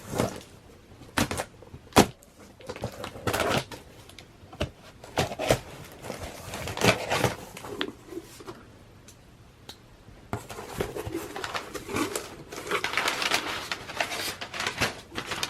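A shipping package being opened by hand: scattered knocks and rustles as the package is handled and torn into, then from about ten seconds in a steady crinkling of wrapping material being pulled away.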